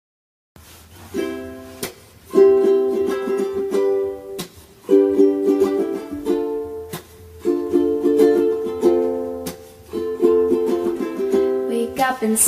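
Light background music of plucked strings, ukulele-like, in short repeating phrases, starting after a brief silence.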